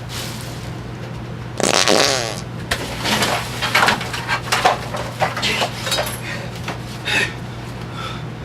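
Fart sounds: a long wavering one starts about a second and a half in, followed by a string of shorter, irregular ones. A steady low hum runs underneath.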